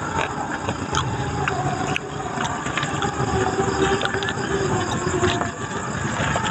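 A motor running steadily, with a few light clicks over it.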